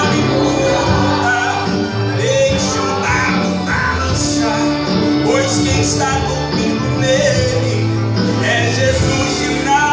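A man singing a gospel song in Portuguese into a microphone, over instrumental accompaniment, amplified in the hall.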